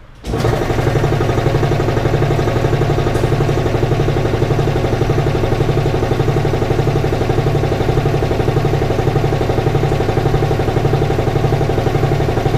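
Speedaire 5Z404 belt-driven electric air compressor, freshly rebuilt with a new connecting rod and rings, starting suddenly and running steadily with an even, regular pulsing as it pumps up the tank.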